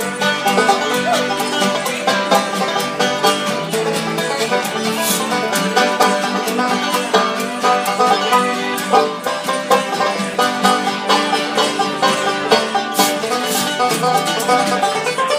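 Live acoustic music: a banjo picking a tune, with an acoustic guitar strumming along.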